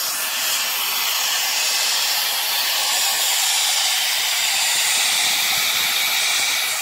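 Steady, loud hiss of air, with no tones or knocks and no change in level, heard on top of a tank trailer while it is being unloaded.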